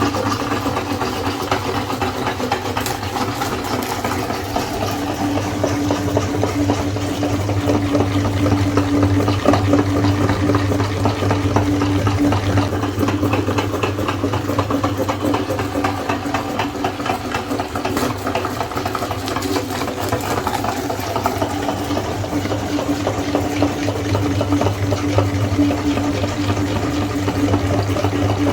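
Electric meat grinder running steadily, its motor humming under a dense crackle as it grinds ice cream bars.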